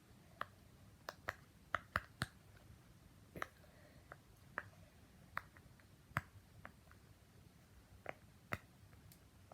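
Silicone pop-it fidget toy's bubbles being pressed in one by one on its quiet side, giving soft, separate pops at an uneven pace, roughly one or two a second.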